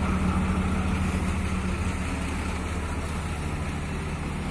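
Loaded truck's diesel engine idling steadily, a low even hum that fades slightly.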